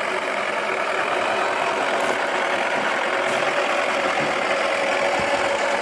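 Wacky Washer toy washing machine's small electric motor running steadily with a steady whine, its drum turning with a cricket ball inside.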